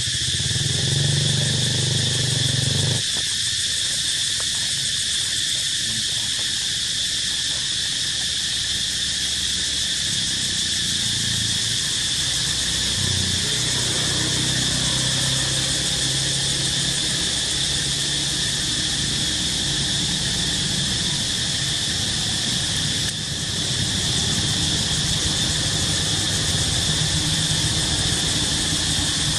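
Steady shrill insect drone, unchanging throughout, over a low rumble.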